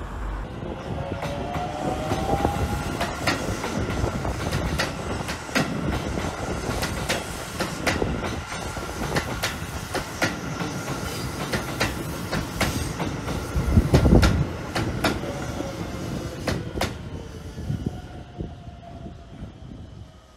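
Keisei commuter train passing close by on the main line, its wheels clacking over rail joints in a steady run of clicks over a continuous rumble. A brief rising whine comes near the start, the loudest low thump about two-thirds of the way through, and the sound fades near the end as the train moves off.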